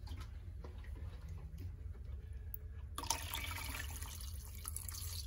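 Water poured into an ultrasonic cleaner's tank from about three seconds in, topping up the warm solution so that it covers the clock movement. Before the pour there are only a few faint drips and small knocks over a steady low hum.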